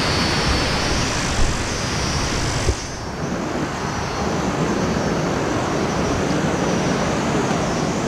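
Steady rushing of a mountain river's water spilling past an old stone dam, an even hiss-like roar, with a single knock a little under three seconds in.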